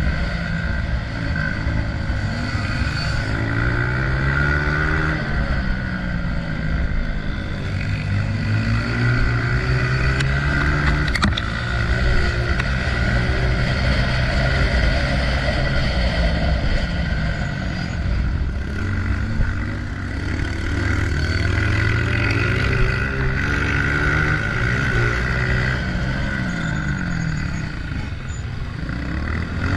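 Honda CRF125F dirt bike's single-cylinder four-stroke engine revving up and down again and again, its pitch climbing and dropping as the throttle opens and closes, with one sharp knock about eleven seconds in.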